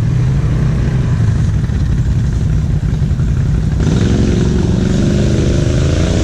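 ATV engines running steadily. About four seconds in, an engine note climbs slowly in pitch as one ATV revs to pull through a mud rut.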